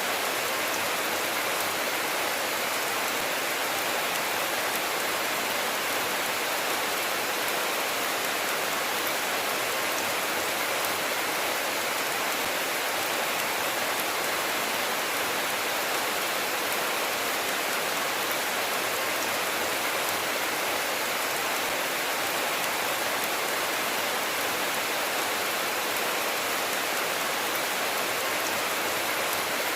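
Steady rainfall: an even hiss of rain with faint ticks of single drops.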